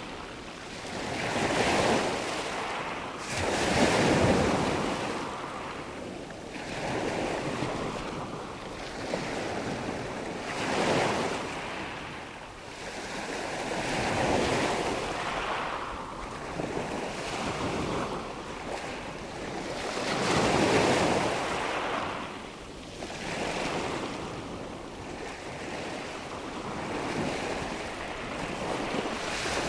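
Ocean waves breaking and washing on the shore, the surf swelling and fading every few seconds with no steady rhythm.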